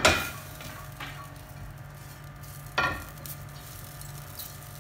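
Silicone spatula spreading a little cooking oil over a flat steel tawa griddle so the dough won't stick, knocking against the metal three times, the loudest at the start and just under three seconds in.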